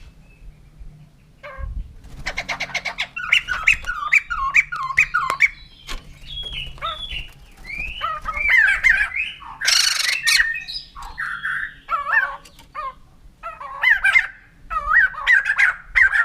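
White-crested laughingthrush calling: from about two seconds in, runs of quick, falling cackling notes, with a harsh, rasping screech about ten seconds in.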